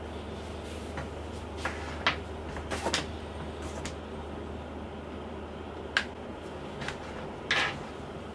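Charging cable and plastic power adapter being picked up and handled on a wooden desk: a scatter of light clicks, taps and a brief scrape over a steady low hum.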